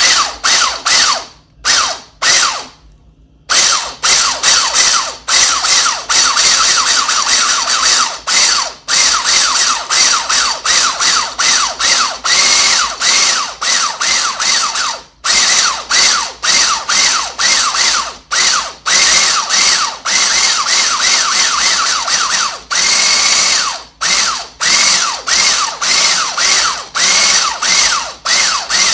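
Electric mixer whipping cream and sugar in a bowl: the motor runs fast with a wavering whine and many brief dips. It stops for about two seconds near the start, then runs on.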